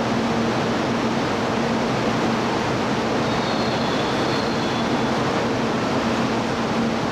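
Steady noise of a Kyushu Shinkansen train approaching a station platform from a distance, together with a low steady hum. A faint high tone is heard near the middle.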